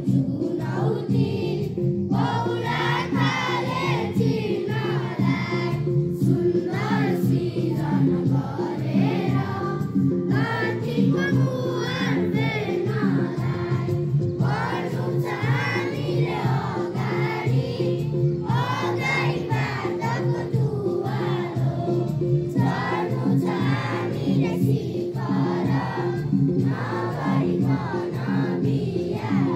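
A group of schoolchildren singing a song together in chorus over a steady instrumental accompaniment.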